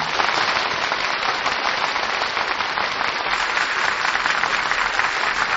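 Audience applauding steadily after a song ends, heard on a 1948 radio broadcast recording with a narrow, dull top end.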